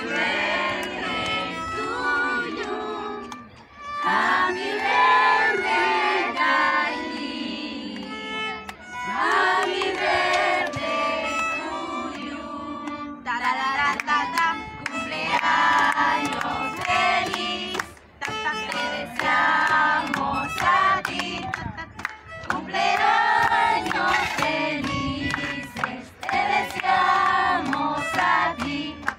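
A group of women singing in phrases to harp and violin accompaniment.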